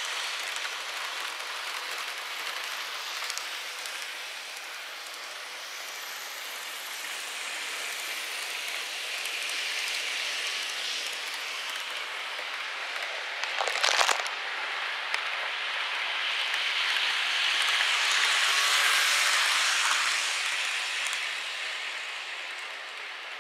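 N-gauge model trains running on the track: a steady light hiss of small wheels and motors that swells as the Kintetsu 20100 series model passes close by in the second half. A short clatter comes a little before the swell.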